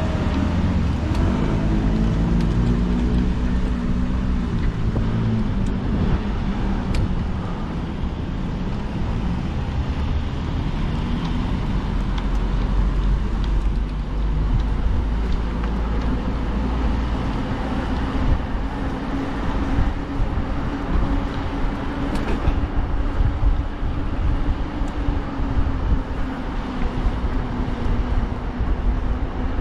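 Road traffic noise heard while riding along a road: cars passing, over a steady low rumble.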